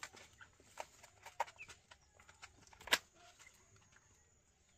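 Young chickens, Aseel chicks with a broiler chick, giving a few soft peeps and clucks, with scattered sharp taps; the loudest tap comes about three seconds in.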